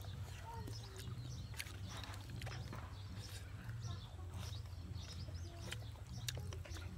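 Rural outdoor background with a few short scattered bird calls over a steady low hum, and light clicks and rustles from handling food on a banana leaf.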